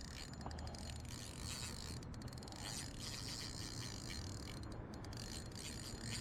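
Fishing reel clicking faintly in short runs of rapid ticks while a big hooked fish is played on the line.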